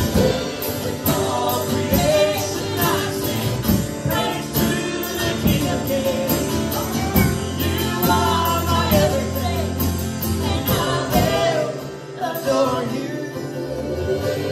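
Live worship band playing a slow praise song: a woman sings the lead with other voices along, over guitars, bass and drums, with a steady ticking beat high up. The band's low end thins out about three-quarters of the way through.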